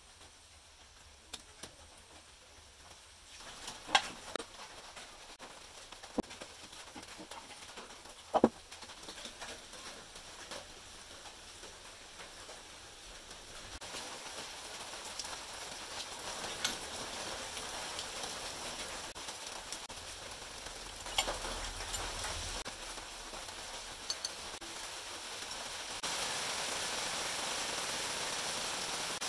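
Scattered metallic clicks and knocks as steel engine parts and pliers are handled while a 150 cc motorcycle engine's crankcase is taken apart, with two sharper knocks in the first third. Underneath is a steady hiss that grows louder about halfway through and again near the end.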